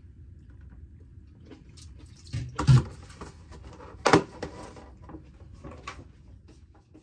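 Clear plastic clamshell container of grapes being handled, snapped shut and knocked on the counter. A cluster of crackling clatters about two and a half seconds in is the loudest, another knock comes about four seconds in, and there are a few lighter clicks after.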